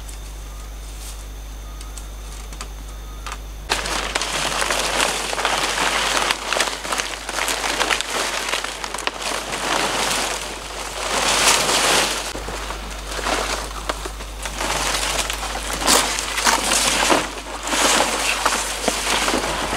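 Palm fronds rustling and crackling as they are carried and laid over a bamboo roof frame, coming in loud swells from about four seconds in. Before that there is only a steady, low background.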